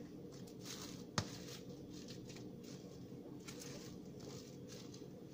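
Faint crinkling of plastic cling wrap as hands press and smooth it over ice cream in a plastic container, with a single sharp tap about a second in, over a steady low hum.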